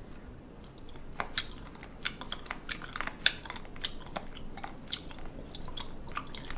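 Close-miked chewing of firm raw sea cucumber: irregular wet crunches and clicks from the mouth, several a second.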